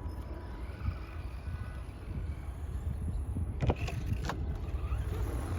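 Mini electric RC cars driving on dirt, with two sharp knocks a little past halfway, about half a second apart.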